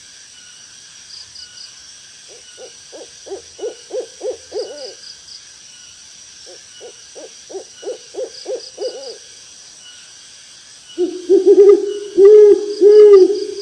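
Owl hooting: two runs of quick repeated hoots, about four a second, then louder, wavering calls near the end. A steady high insect chirring runs underneath.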